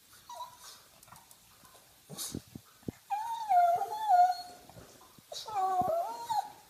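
Pug whining, two long wavering cries a couple of seconds apart after a brief faint one, begging to be fed.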